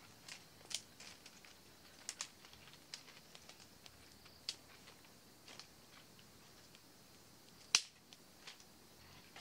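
Faint, scattered dry cracks and clicks of small wood at irregular moments, with one louder sharp snap near the end.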